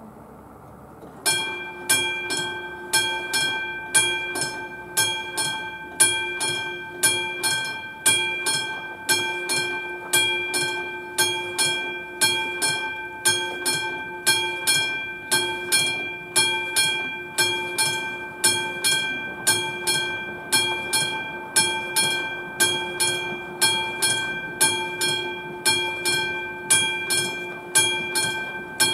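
Classic electromechanical warning bell of a Czech level crossing ringing in rapid, steady strikes, several a second, starting about a second in: the crossing's warning for an approaching train.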